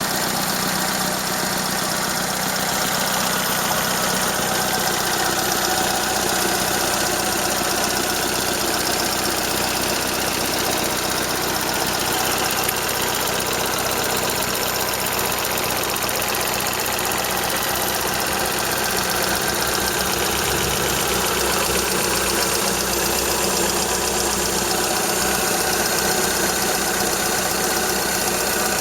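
Toyota 4A-FE 1.6-litre inline-four engine idling steadily with a light, continuous tapping rattle. The owner is unsure whether it is a valve tapping or the gearbox shafts rattling, and the exhaust flex pipe leaks a little.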